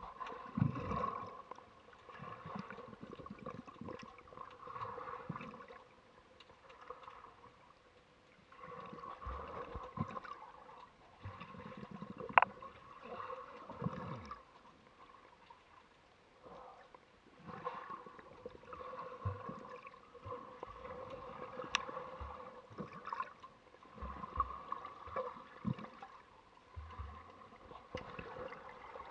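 Seawater gurgling and sloshing in uneven surges, recorded with the camera underwater, with a few sharp clicks.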